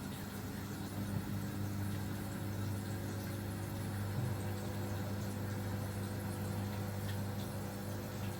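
Steady low electrical hum of a running motor or kitchen appliance, with a faint background hiss.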